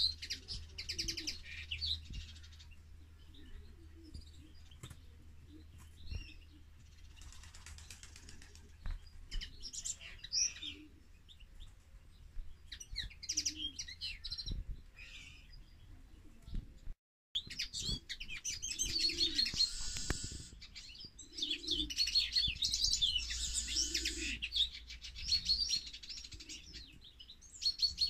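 Caged finches, a common linnet and a European goldfinch, singing in fast twittering phrases of rapid high notes a few seconds long with pauses between. The song breaks off for a moment about two-thirds of the way through and comes back louder and denser.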